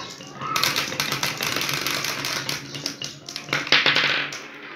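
A stream of glass marbles rolling down wooden marble-run tracks, clicking against each other and the wood in rapid, dense clatter as they pour into a basket of marbles. The clatter starts about half a second in and dies down after about four seconds.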